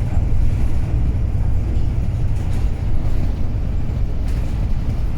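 Cummins ISB diesel engine of a 2009 Wright Pulsar 2 single-deck bus running, a steady low rumble.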